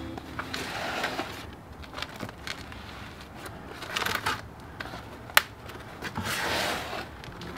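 Hands scooping and pressing loose potting soil into a small plastic pot: soft rustling, crumbly scrapes in several bursts, with one sharp click a little past the middle.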